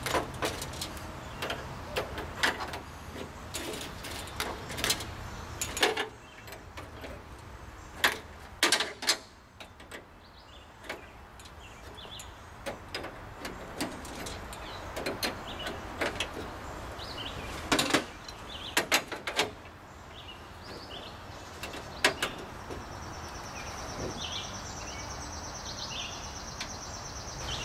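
Irregular metallic clicks and knocks of hand tools and air-line fittings being worked on a semi truck's back deck as the air lines are connected.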